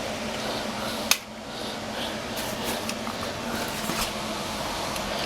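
Steady room hum, with a single sharp click about a second in.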